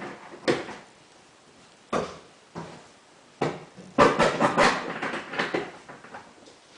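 Single knocks and clunks, then a run of rattling clatter about four seconds in, as the stuck truck box is opened and its latch and lid are worked.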